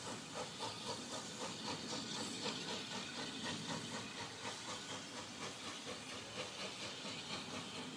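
A 1919 Hawthorn Leslie industrial steam locomotive pulling away, its exhaust beats making a quick, even chuffing of about three or four a second over a steady hiss. The chuffing slowly fades as the engine draws off.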